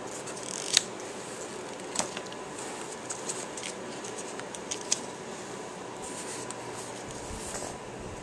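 Light handling sounds of a small paperback booklet in a baby's hands: soft rustling and a few sharp little clicks, the clearest about one second in, at two seconds and near five seconds, over a faint steady hum with a thin whine.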